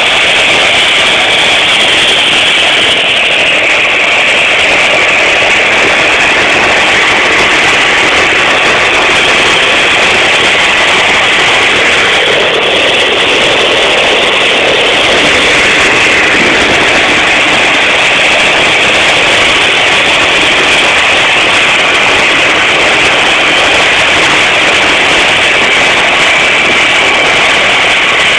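De Havilland Canada DHC-6 Twin Otter's two turboprop engines running on the ground, propellers turning: a loud steady engine and propeller noise with a thin high whine.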